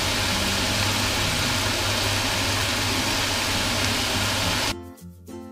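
Steady sizzle of turkey and onions frying in a pan on a gas hob, under a constant low hum. It cuts off suddenly near the end, and light tinkly music begins.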